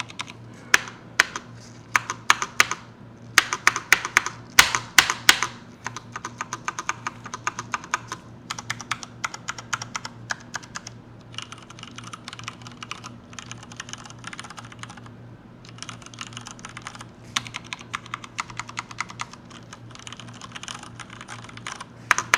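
Typing on a Hansung GK998B full-size mechanical keyboard with Cherry MX Brown switches: fast runs of key clacks with a few louder strikes about four to five seconds in, broken by a couple of short pauses.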